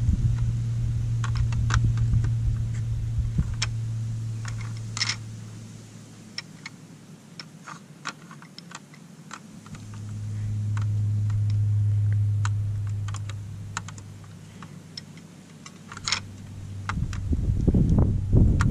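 Irregular small plastic clicks and clacks as a red fox noses and slides the plastic rods of an interactive dog treat puzzle, with a few sharper knocks about five seconds in and again about sixteen seconds in. Under them a low steady hum swells and fades twice.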